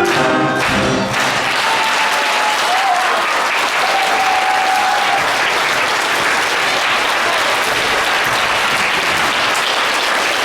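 The music ends about a second in and a theatre audience applauds steadily.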